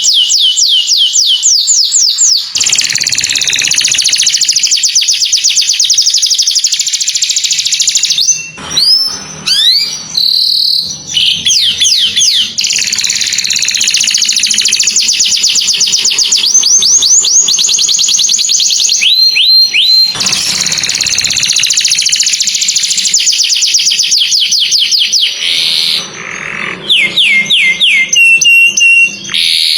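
Canary singing loudly in long rapid trills and rolls of fast-repeated high notes, with a few brief breaks between phrases.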